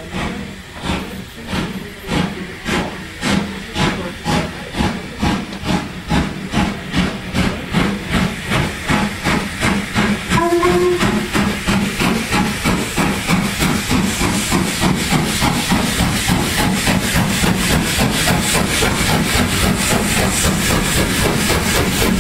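Three-cylinder steam locomotive LMS Jubilee Class 45690 'Leander' working a train, its exhaust beats quickening and getting louder as it comes closer, over a steady hiss of steam. A brief steam whistle sounds about ten seconds in.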